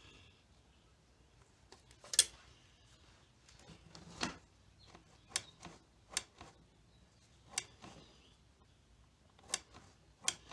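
Scattered light clicks and small knocks from handling the newly fitted throttle cable and carburetor linkage on a scooter, about seven in all at uneven gaps, the loudest about two seconds in.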